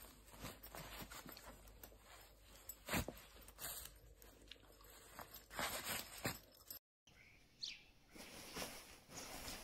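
Faint handling noise from a nylon sleeping bag being moved about by hand: scattered rustles and knocks, the sharpest about three seconds in. The sound then drops out briefly, and a short high chirp follows over faint outdoor noise.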